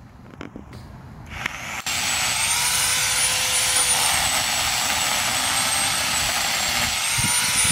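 Corded electric pole chainsaw starting up about a second and a half in, whining up to speed and then running with a steady high whine and chain noise as it cuts branches. Its pitch sags a little in the middle and rises again near the end.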